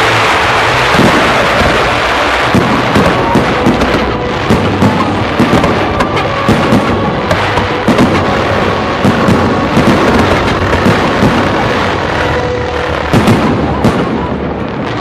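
Aerial fireworks display: a dense barrage of shells bursting, with many sharp bangs in quick succession over a continuous crackle. The bangs thin out near the end.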